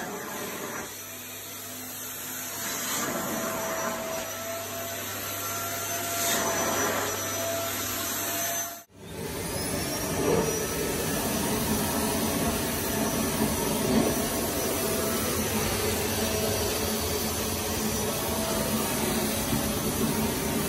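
Wertheim 7 Series canister vacuum cleaner running. It is first drawn over sofa upholstery with a hose tool, with a faint steady whine. It cuts out briefly about nine seconds in, then runs louder with its floor head pushed over carpet.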